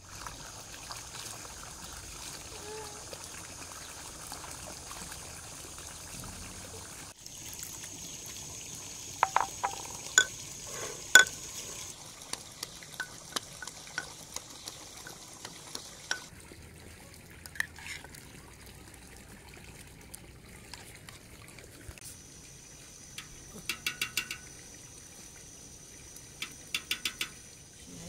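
Water running from a pipe into a garden pool, with bright ringing clinks of a brass pestle striking a brass mortar, a few loud strikes and later quick runs of clinks.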